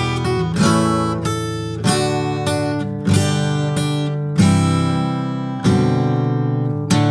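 Music: strummed acoustic guitar chords, with a strong strum about every second and a quarter and lighter strums in between, playing a song's intro before the vocals come in.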